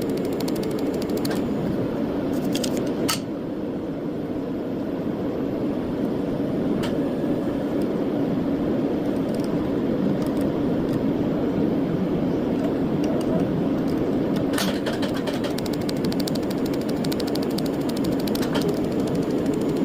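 Steady mechanical whir of workshop machinery with a few sharp clicks, then a fast, even run of ticks about three-quarters of the way through.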